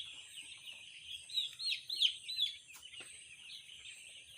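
A flock of three-day-old broiler chicks peeping continuously, with a few louder, closer cheeps around the middle.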